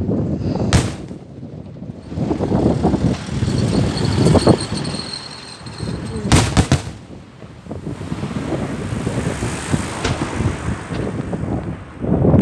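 Fireworks going off: sharp bangs about a second in, a quick run of several near the middle and another at the end, over continuous crackling and booming, with thin high whistles.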